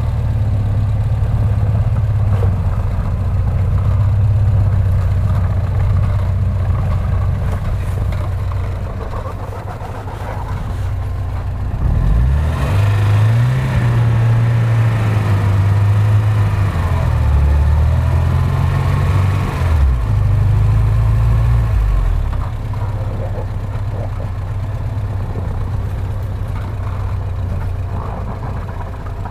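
An off-road SUV's engine runs steadily, then revs up and down for several seconds around the middle, its pitch rising and falling as it works under load on a snowy hill climb.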